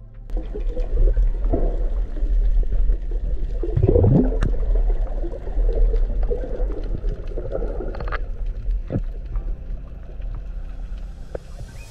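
Underwater sound picked up through a camera's waterproof housing: a steady low rumble of moving water with gurgling, a few scattered sharp clicks, and a brief rising gurgle about four seconds in.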